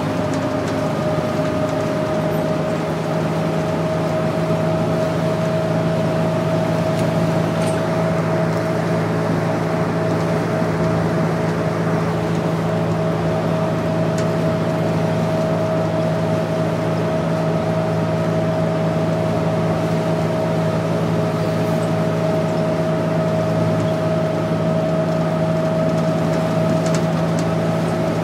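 Inside a 2001 New Flyer C40LF transit bus cruising at freeway speed: the steady drone of its Cummins C Gas Plus natural-gas engine and Allison B400R automatic transmission, with a thin whine that creeps slightly upward in pitch, over tyre and road noise.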